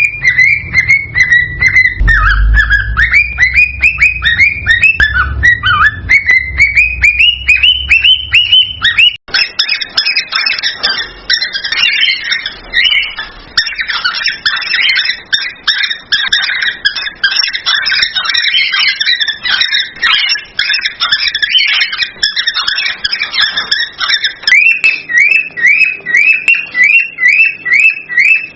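Cockatiel song: quick repeated whistled chirps, about three a second, some gliding in pitch. About nine seconds in it changes abruptly to a dense chattering warble, and near the end goes back to quick repeated chirps. It is the excited singing used to stimulate cockatiels to breed.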